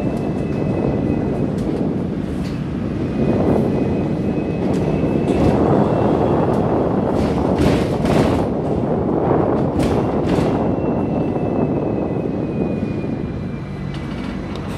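Hong Kong double-decker tram heard from on board, running along the street tracks: a steady rumble of steel wheels on rail with a faint high whine, and scattered clicks and knocks from the rails and the car body.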